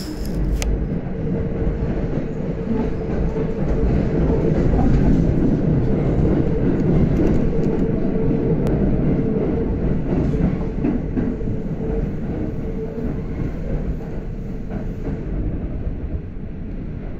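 Running sound inside a Kintetsu electric train fitted with GTO-thyristor inverters: a dense, steady low rumble with a constant hum held throughout. It grows a little louder over the first few seconds and eases slightly near the end.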